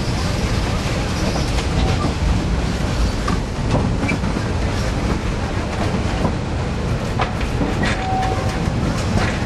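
Open-air passenger car of a narrow-gauge tourist railroad rolling along: a steady low rumble of wheels on track with irregular clicks and knocks, and a brief thin squeal about eight seconds in.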